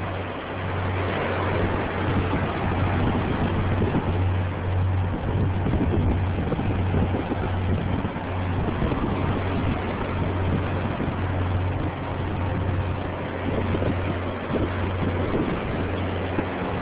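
Ocean surf washing against rocks: a steady, loud rushing noise with an irregular low rumble under it.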